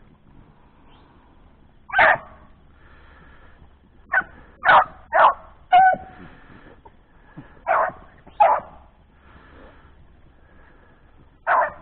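Hunting dogs barking in short, separate barks, about eight of them at uneven spacing: rabbit dogs giving voice as they hunt a rabbit's trail.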